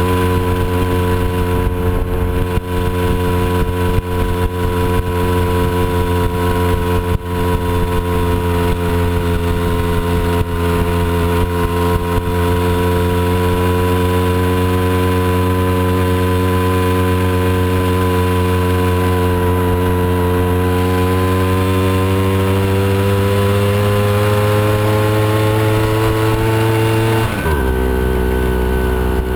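Moped scooter engine running steadily under way, with occasional knocks in the first half. Near the end the engine pitch climbs gradually, then drops suddenly as the throttle closes.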